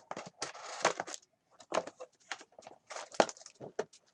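Trading card packs being handled: wrappers crinkling and tearing, with a quick run of sharp clicks and crackles as the cards are handled, and a longer scratchy tear about half a second in.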